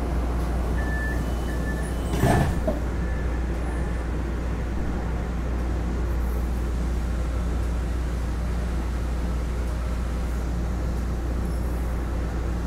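Steady low hum inside a Green Line light-rail car standing at a station, with a short loud burst of noise about two seconds in and faint high beeps around it.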